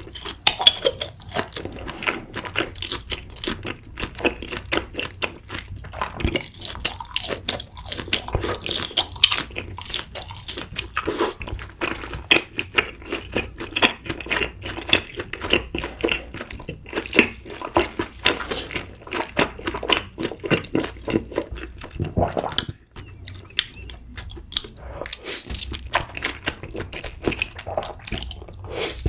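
Mouth sounds of a person eating: continual wet chewing and smacking, with a brief pause a little over three-quarters of the way through.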